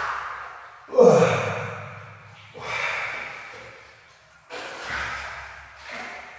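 Water splashing and sloshing in a shallow pool as a person moves and rolls in it: four separate swishes that each die away.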